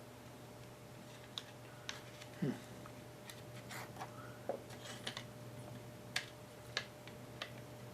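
Scattered light clicks and taps as the opened plastic housing and parts of a cordless drill are handled, with a short sound falling in pitch about a third of the way in.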